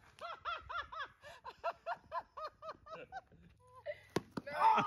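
A person laughing in a steady run of short "ha" bursts, about five a second, for about three seconds. A sharp knock follows about four seconds in, with voices just after.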